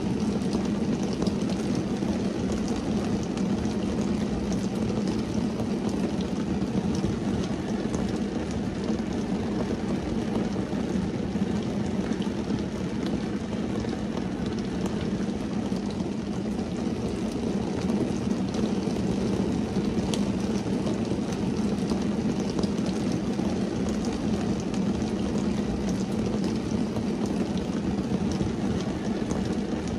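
Rain falling on a car's windscreen and body, heard from inside the car: a steady wash of rain with scattered small ticks of single drops, over a steady low hum.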